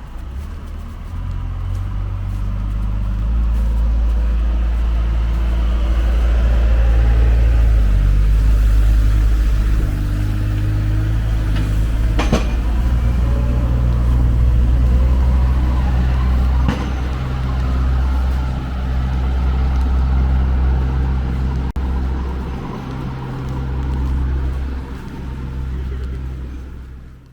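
A large road vehicle's engine running close by, a loud, steady low hum, with a couple of sharp clicks about halfway through.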